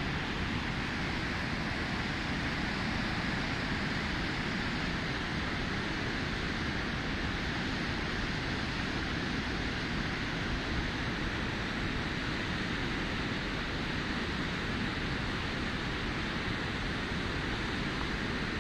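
Steady rushing of white water from a fast mountain river, an even noise with no breaks.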